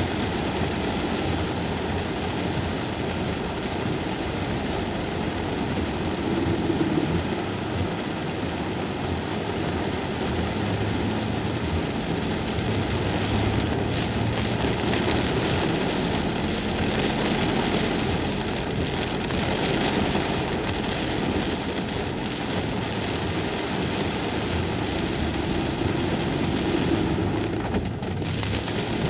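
Heavy rain beating steadily on a car's roof and windscreen, heard from inside the cabin, with the car's engine running underneath.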